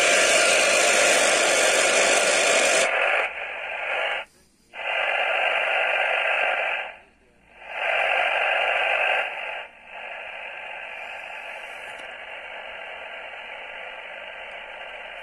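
Kenwood TS-530S shortwave transceiver's receiver hissing with static from its speaker. A loud wide hiss for about three seconds gives way to narrower static that cuts out twice, briefly, then settles quieter about ten seconds in.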